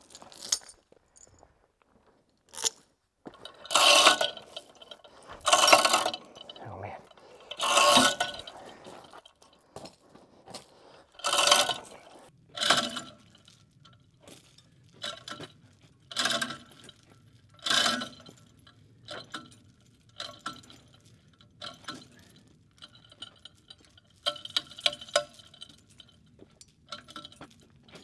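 Steel pry bar clanking against stone: about a dozen sharp, ringing metallic strikes at irregular intervals. A low steady engine hum from the backhoe comes in about halfway through.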